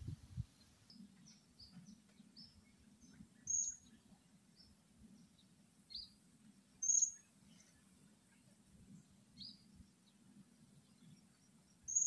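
Short, high, thin chirps of a blue-crowned hanging parrot (serindit) calling. Three louder chirps come a few seconds apart, with fainter ones between, over a faint low background rumble.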